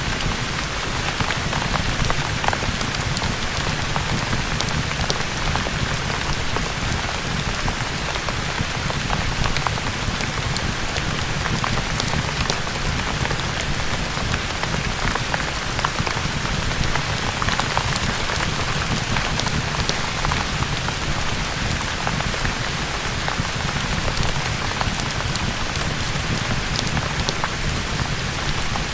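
Steady heavy rain, a dense even hiss with a low rumble underneath and many scattered sharp ticks.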